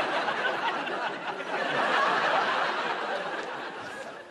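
A studio audience laughing loudly together, the laughter dying away near the end.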